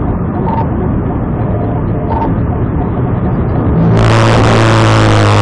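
Patrol car at speed, heard inside its cabin: a steady rumble of engine and road noise. About four seconds in, a louder hissing noise with a steady low hum joins it.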